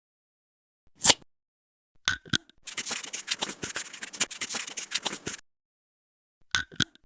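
Knife blade being sharpened: about three seconds of rapid scraping strokes in the middle, with short ringing metallic clicks just before and near the end.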